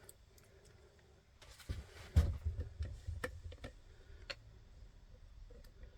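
Light clicks and knocks of a lock cylinder and small metal tools being handled, with a dull knock about two seconds in followed by a scattering of sharper clicks.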